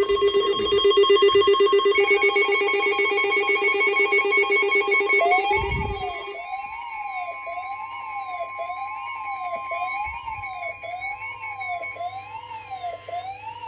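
Weather-radio emergency alert tones: a steady high alert tone, the NOAA Weather Radio 1050 Hz warning alarm, sounds with other steady tones over a fast-pulsing buzz for the first six seconds. From about five seconds in, a siren-like alarm rising and falling about once every 0.7 s takes over, and the steady tone cuts off just before the end.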